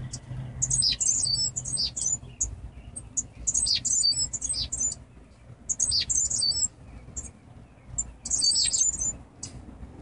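Cuban grassquits giving short bursts of high, thin twittering calls, several ending in a falling note, every second or two.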